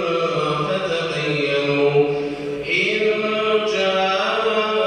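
A man reciting the Quran in Arabic in a melodic, chanted style, drawing out long held notes. One phrase ends about halfway through and, after a short breath, the next phrase begins.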